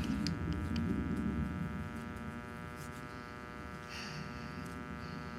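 Steady background rumble with a buzzing hum, from an unidentified machine or appliance. The rumble is louder in the first two seconds and eases a little after that, with a few faint clicks over it.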